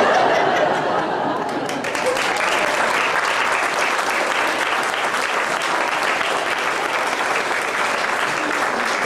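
A small audience applauding, loudest in the first second or so and then settling into steady clapping.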